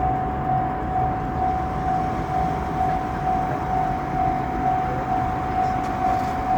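Japanese level-crossing warning bell ringing its repeated 'kan-kan' tone, about two strikes a second.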